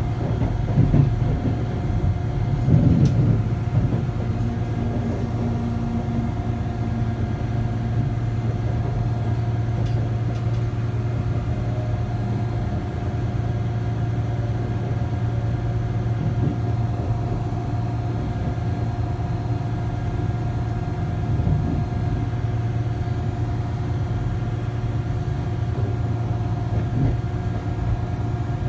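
Passenger train running, heard from inside the carriage: a steady low hum with a constant higher tone, with a few louder rumbles in the first few seconds.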